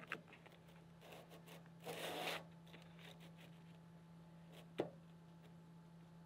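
Hands folding a filled tortilla into a burrito on a plate: faint rustling and handling, with a brief louder rustle about two seconds in and a single sharp tap a little before five seconds.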